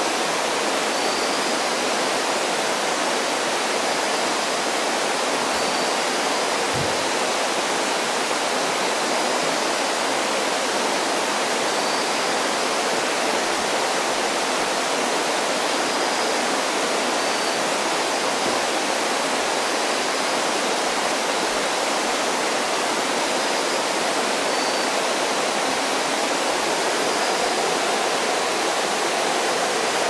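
Night jungle ambience: a steady, even hiss with faint, short, high-pitched calls recurring every second or two.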